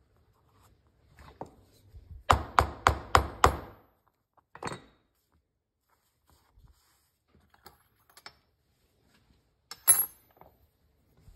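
Five quick knocks in a row, about three a second, from work at a leather workbench, followed by a few light clicks and a sharp clink with a short metallic ring near the end.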